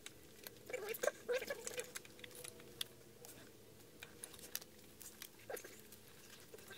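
Scattered light clicks, taps and rustling of gloved hands and metal parts as a fuel rail with new injectors is worked down into place on a GM 3.6 V6 engine.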